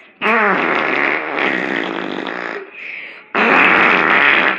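A person making fake fart noises: two loud, rough blasts, a long one of about two and a half seconds and then a shorter one of about a second.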